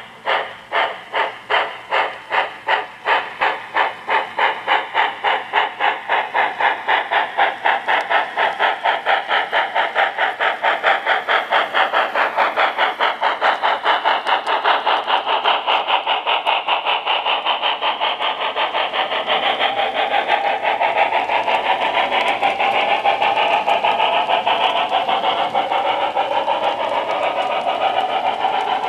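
Model Union Pacific Challenger steam locomotive chuffing, the beats quickening steadily from about two a second as the train gathers speed, then the steadier rolling sound of freight cars going past on the track in the second half.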